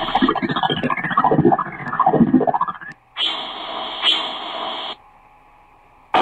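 Electronic static sound effects: bursts of radio-like hiss that start and stop abruptly, with glitchy sweeping tones rising and falling through the first three seconds, a second plain burst of static, a short lull, then a crackling burst near the end.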